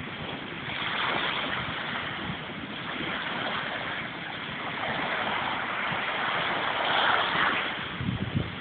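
Small waves washing onto a sandy shore: a steady hiss of surf that swells and ebbs, loudest about seven seconds in.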